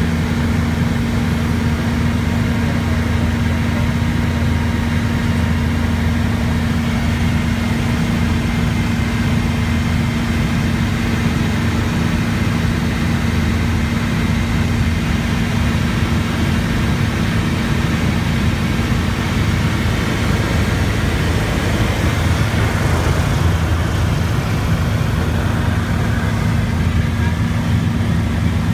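Helicopter in flight heard from inside the cabin: a loud, steady drone of engine and rotor with a constant low hum.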